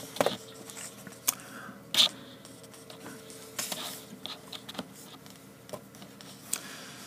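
Scattered light clicks and taps from computer-mouse and desk handling, about half a dozen spread irregularly, over a faint steady hum.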